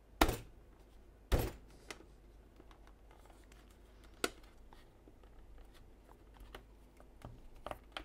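Base cover of an Apple Time Capsule A1470 being pushed back onto the case by hand: a few sharp plastic clicks and knocks, the two loudest within the first second and a half, then a lone click about four seconds in and fainter clicks and handling near the end.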